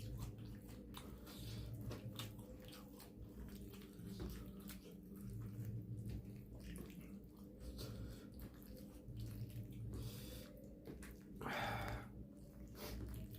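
Close-up chewing and mouth sounds of a person eating: irregular soft wet clicks and smacks over a low steady room hum, with a short louder rush of noise near the end.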